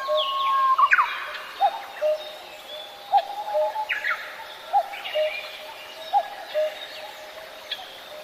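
Birdsong: several birds chirping and calling, a short low chirp repeating about every one and a half seconds under quicker, higher calls.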